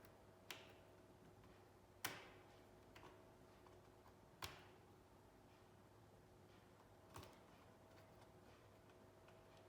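A few sharp, isolated clicks and taps of hands and parts knocking against a laptop being taken apart, about five spread out, the loudest about two seconds in, over a faint steady hum.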